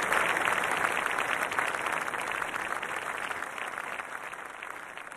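Large crowd applauding, a dense even clatter of many hands that fades away towards the end.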